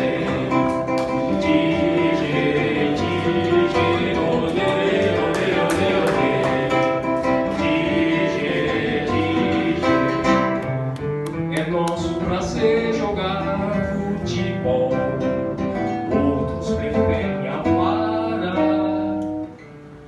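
Acoustic guitar song with singing. The music stops a little before the end.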